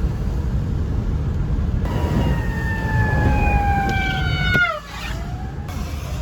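Emergency vehicle siren wailing over the steady low rumble of a moving vehicle's road noise. The siren's pitch slides slowly down, drops away about four and a half seconds in, and starts to rise again near the end.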